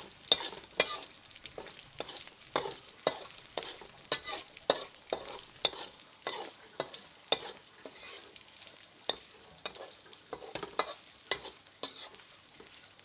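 Lemongrass and dried chili frying in hot oil in a pan, sizzling, while a utensil stirs them, scraping and knocking against the pan in sharp, irregular clinks about twice a second.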